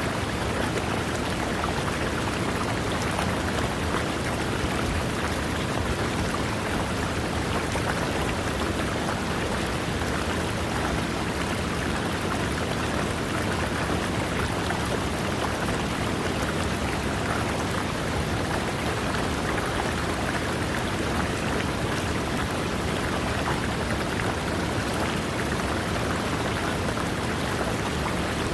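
River water rushing over rocks: a steady, even wash of noise with no breaks.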